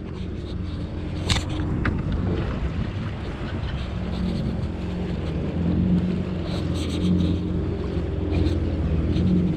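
Yamaha FX HO WaveRunner jet ski engine running steadily at low speed, a low even drone. There is a sharp click just over a second in.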